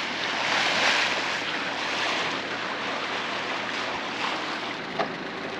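Open sea washing around a boat, a steady hiss of water with wind on the microphone, and a single light knock about five seconds in.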